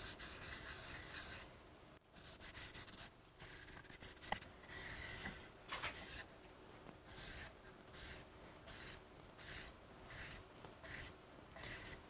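A rag in a gloved hand wipes wet finish across an elm board, a faint rubbing hiss. The strokes are long at first, then turn into short back-and-forth strokes about twice a second in the second half, with one small tick in the middle.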